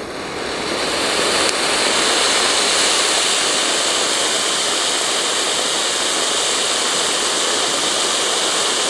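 Ground fountain firework (a 'lollipop') spraying sparks with a loud, steady hiss that builds over the first couple of seconds and then holds, with one small pop about a second and a half in.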